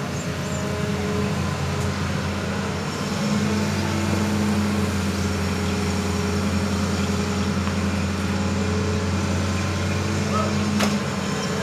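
Hitachi Zaxis 200 crawler excavator's diesel engine running steadily under hydraulic load as the machine swings and raises its boom; the engine note grows louder about three seconds in. A single sharp click near the end.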